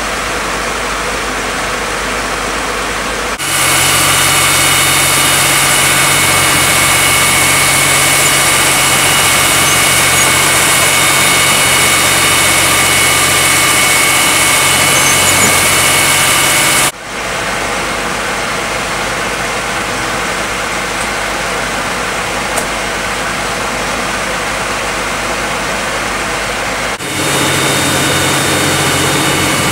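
Firefighting vehicles' engines and pumps running steadily, with the broad hiss of water jets being sprayed. The sound changes abruptly three times as the footage cuts between scenes.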